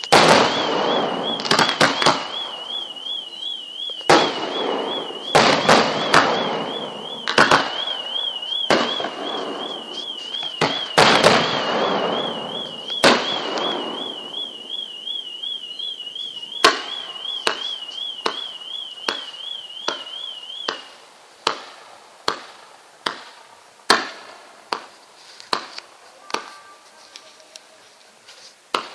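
Fireworks display: aerial shells bursting with loud bangs one after another, each trailing off in crackle, thinning in the last third to sparser single sharp cracks. A high warbling tone wavers underneath until about two-thirds of the way through, then stops.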